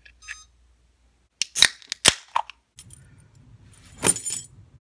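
A few sharp metallic clinks, like a belt buckle being undone, then cloth rustling as trousers drop, with a louder clatter as they land about four seconds in.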